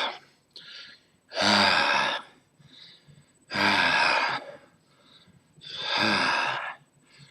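A man letting out three loud, rasping breaths about two seconds apart, each lasting about a second, with faint breaths in between.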